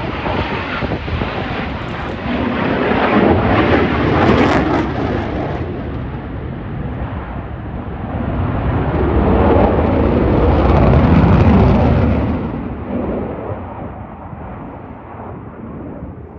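F-35C Lightning II's single afterburning turbofan jet engine, very loud, with a crackling rumble during a pass. The roar swells twice, then fades away near the end as the jet moves off.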